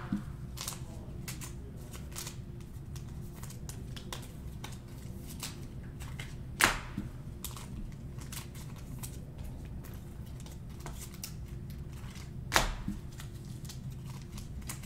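Trading cards being handled and flipped through: soft rustling and small clicks, with three sharper snaps about six seconds apart, over a steady low hum.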